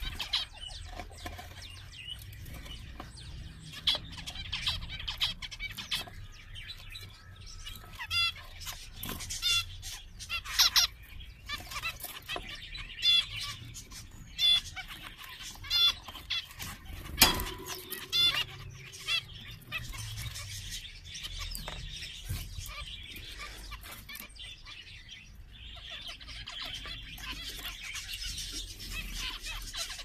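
A group of zebra finches calling: many short, repeated nasal beeps and chirps overlapping. There is one sharp knock a little past halfway.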